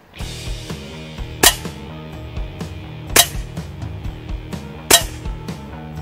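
Three sharp shots from a Hatsan Galatian pre-charged pneumatic air rifle, one every second and a half to two seconds, over background music.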